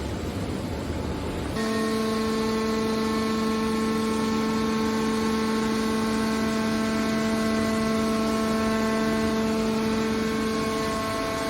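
Scrap car baler's hydraulic machinery running: a low rumbling noise, then about one and a half seconds in a steady, even-pitched hum sets in and holds.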